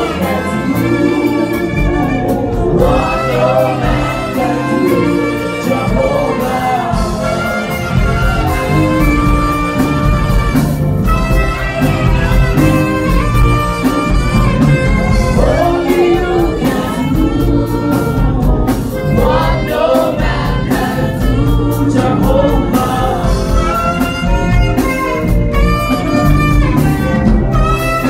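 Two saxophones playing a jazz-styled gospel melody live, with a full backing underneath.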